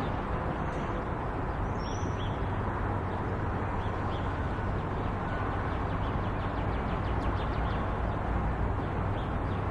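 Steady outdoor noise from field footage, with a few faint short high chirps scattered through it.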